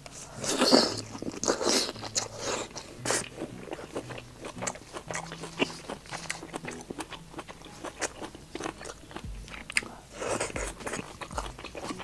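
Close-up eating sounds of a person biting and chewing the meat of a giant shellfish claw: wet mouth clicks and crunchy crackles. There are louder bites about half a second in and again near the end.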